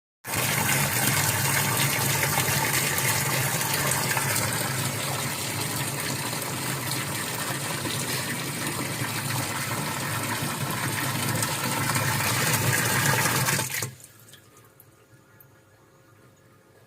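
Water rushing steadily in a washing machine, with a low hum underneath, cutting off abruptly about 14 seconds in; a few faint drips follow.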